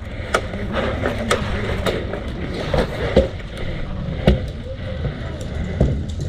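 Scattered sharp clicks and knocks at uneven intervals over a steady low rumble, the loudest about three and four seconds in.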